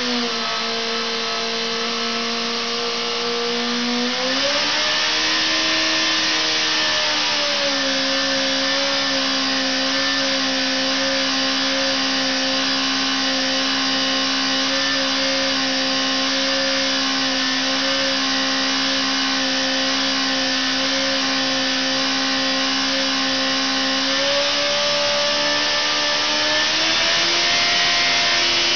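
Engine running on a dynamometer test bed, held at steady speeds. Its pitch drops slightly at the start, rises about four seconds in and settles a little lower, then rises again a few seconds before the end.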